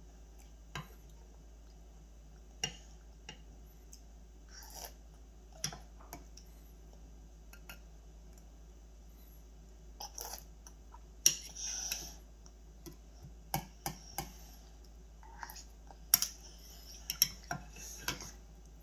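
Metal spoon clinking and scraping against a metal bowl of cereal and milk, in scattered taps that come more often in the second half.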